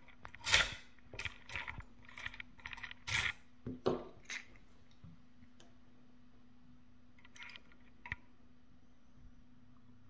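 Handling knocks and scrapes of a key being drawn out of a dimple lock cylinder clamped in a metal bench vise, heard through a contact mic. Several sharp clicks come in the first few seconds, then two faint clicks near the end as picking tools go into the keyway.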